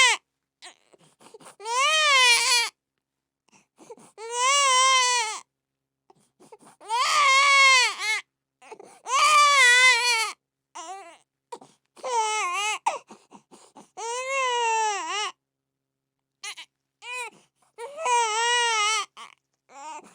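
Infant crying in a series of high-pitched wails, each lasting about a second, broken by short gasps for breath; the cries grow shorter and choppier toward the end.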